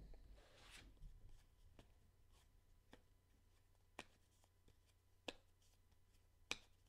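Near silence with a faint rustle in the first second, then four short, faint clicks spaced roughly a second apart.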